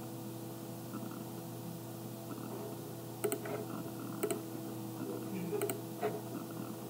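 A few short computer mouse clicks, the first about three seconds in, over a faint steady electrical hum.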